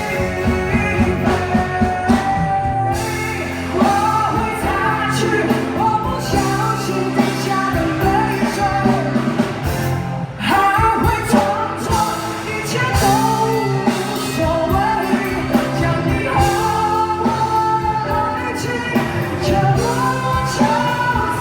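A woman singing a Mandarin pop-rock ballad over instrumental accompaniment, her voice carrying the melody throughout.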